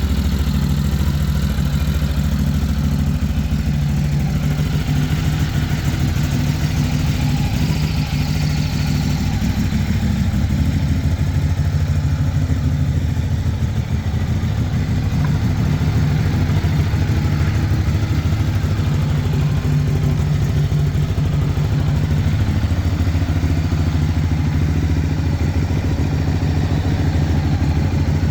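2016 Ducati Hyperstrada 939's 937 cc Testastretta V-twin engine idling steadily, with a brief dip in level about halfway through.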